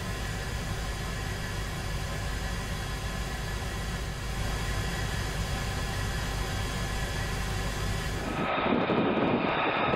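Steady jet-fighter noise in flight: a low rumble under a rushing hiss. A little over eight seconds in it changes to a louder, duller rush with a steady high whine.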